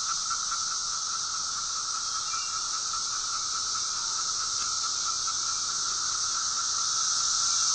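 Chorus of many 17-year periodical cicadas calling at once: a steady, unbroken buzzing drone that grows slightly louder near the end.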